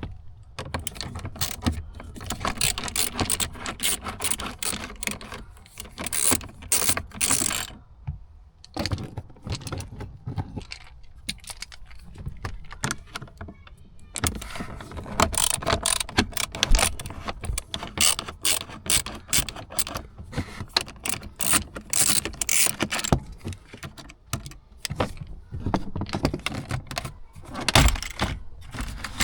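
A hand ratchet clicking in quick runs as fasteners holding the dash trim are backed out, with short pauses between runs.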